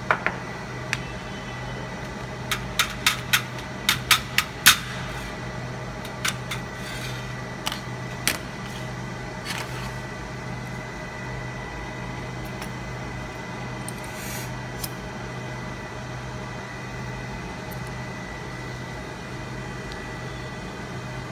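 Steady hum of the fiber laser cutting machine running idle, with a faint high steady tone. In the first several seconds a run of about a dozen sharp clicks and metallic taps, small metal parts being handled.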